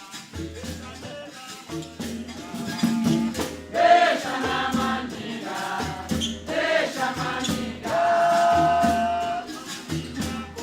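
Capoeira music: a voice sings short phrases, then holds one long note near the end, over a regular drum beat and a rattle.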